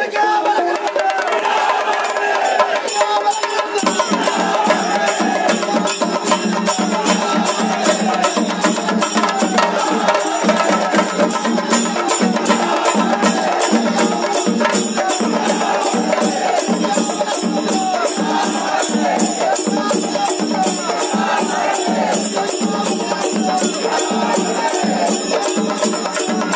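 Procession percussion playing a steady, even beat with a dense clattering on top, over the voices of a large crowd. The beat comes in about four seconds in, after crowd shouting.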